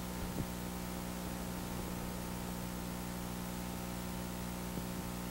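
Steady electrical hum with a row of even overtones under a constant hiss: the background noise of an old film soundtrack.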